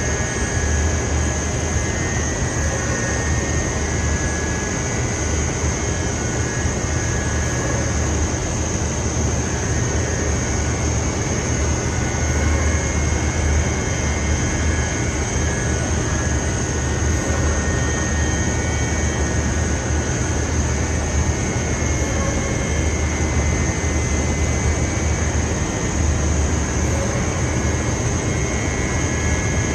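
Machinery of a rock wool production line running steadily: a continuous low rumble with a thin, steady high whine over it.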